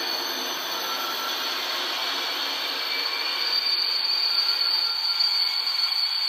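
H0-scale model train running through the station: a small electric motor giving a steady high-pitched whine over the hiss of wheels on the track, getting somewhat louder about three and a half seconds in.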